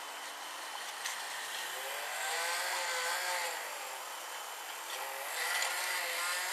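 Small battery-powered toy motor whining steadily. Its pitch rises and falls and it swells louder about every three seconds.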